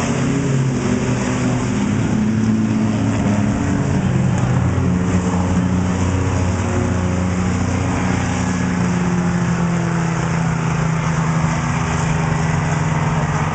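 Engines of pickup trucks racing on a dirt oval track, running hard at speed as the field passes. The engine note is steady and loud, drifting slowly in pitch.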